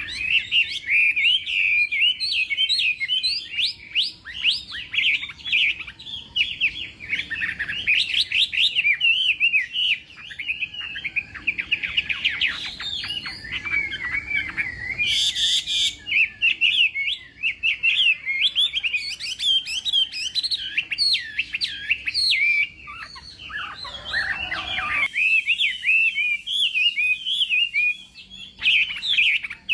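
Chinese hwamei (melodious laughing thrush) singing a loud, fast, endlessly varied song of quick whistled notes and trills. A short hissing burst cuts across the song about halfway through.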